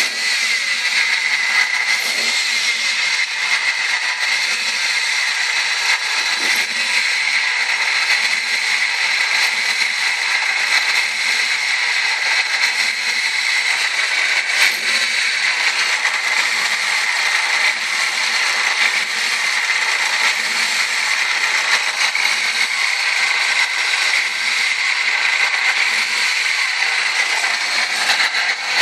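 1998 Ford ZX2's four-cylinder engine running with a steady high-pitched tone over its mechanical noise, the odd noise being diagnosed.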